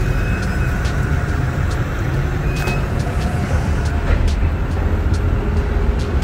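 Car engine idling with a steady low rumble, with a few light clicks over it.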